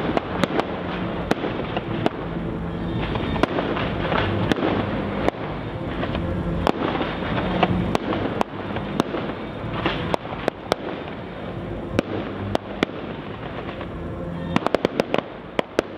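Fireworks display: many sharp bangs and cracks over a continuous rushing noise from launching and burning shells, with a quick run of sharp reports near the end.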